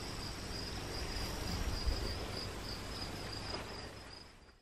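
Crickets chirping in a steady pulsing rhythm, about three chirps a second, over a low rumble; the sound fades out near the end.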